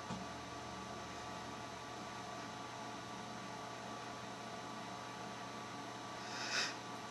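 Steady electrical mains hum with a faint buzzing edge, with a faint knock at the start and a brief, hissy scrape or rustle about six and a half seconds in.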